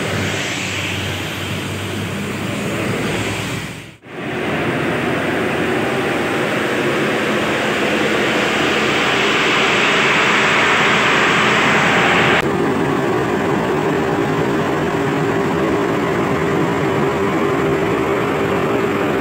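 A large diesel coach passes on the road. After a cut, parked diesel coaches idle with a steady drone and a loud hiss, and the hiss cuts off abruptly about twelve seconds in.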